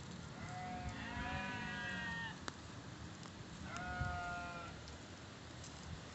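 Livestock bleating twice: a long call of about two seconds, then a shorter one of about a second.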